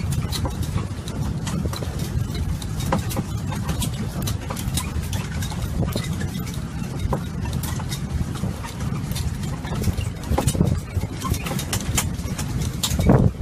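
Dotto tourist road train on the move, heard from a passenger carriage: a steady low engine rumble with frequent light clicks and knocks from the carriage.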